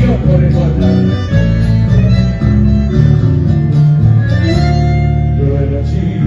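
Live chamamé music played by a band. An accordion carries held melody notes over guitars and bass in an instrumental passage without singing.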